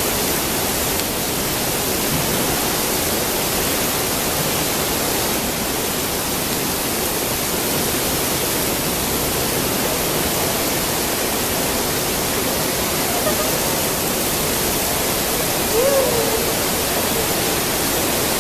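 Artificial downpour of the Rain Room installation, water falling in dense streams from a ceiling grid onto the floor: a steady, even hiss of heavy rain. A voice briefly cuts in about sixteen seconds in.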